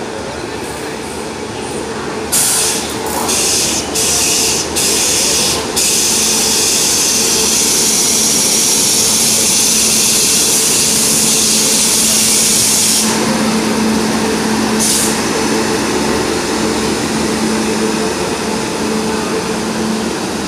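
WAP7 electric locomotive rolling slowly past into a station: several short hisses that start and stop sharply, then a steady loud hiss for about seven seconds that cuts off suddenly. A steady low hum continues after it, with one more brief hiss.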